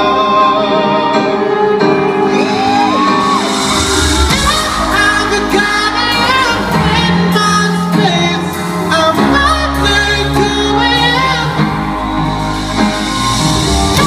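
Live pop ballad in a large concert hall, recorded from the audience: a lead vocal sings a gliding, sustained melody over the band's chords, with a deep bass entering around four seconds in and again for a stretch near the ten-second mark.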